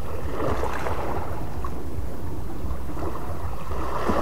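Wind rumbling steadily on the microphone, with small waves washing at the shore and swelling twice.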